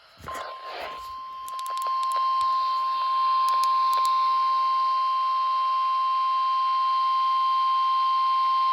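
Weather radio sounding the steady single-pitch NOAA alert tone (about 1050 Hz) that announces a flood watch. It starts under a second in and grows louder over the first few seconds, then holds steady.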